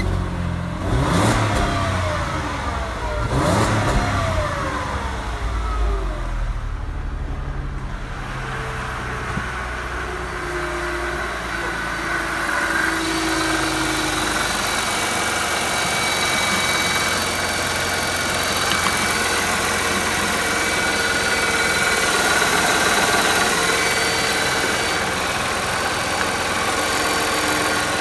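Mercedes M112 2.6-litre V6 engine just after starting: revved briefly twice in the first few seconds, then idling steadily. It is heard close up under the bonnet from about halfway.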